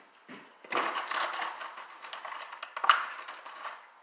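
Rummaging through small metal hardware, screws clicking and rattling against each other and their container, with one sharper click near the end.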